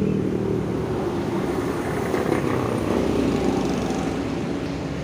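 Steady motor vehicle noise, like a car or motorcycle engine running close by, with no distinct knocks or clicks.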